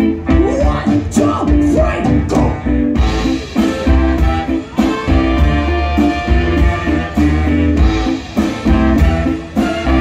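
Live brass band playing a funk and hip-hop groove: a sousaphone bass line and a drum kit keeping a steady beat under saxophones and trumpets, the horns coming in fuller about three seconds in.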